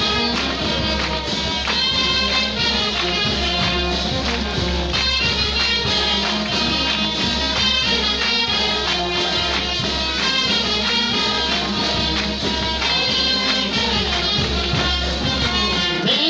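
A live church band playing an upbeat song with a steady beat.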